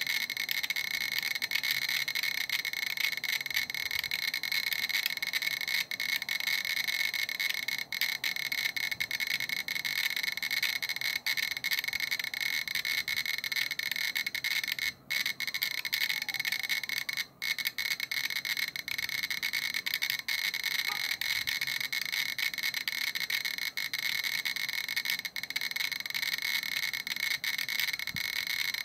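GQ Geiger counter beeping on every count so fast that the beeps merge into a dense, steady chatter, with two brief gaps near the middle. It is counting about 3,100 counts per minute (around 50 a second, roughly 20 µSv/h) from the gamma radiation of a uranium-238 metal sample.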